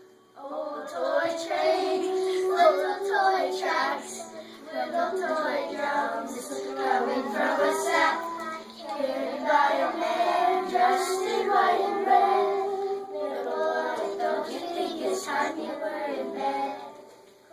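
A group of children singing a Christmas song together.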